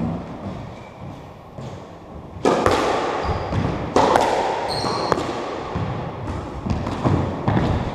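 A squash rally: sharp smacks of the ball against the front wall and floor and of rackets striking it, echoing in the enclosed court, with short sneaker squeaks on the wooden floor. The play starts about two and a half seconds in, after a quieter opening with a few soft knocks.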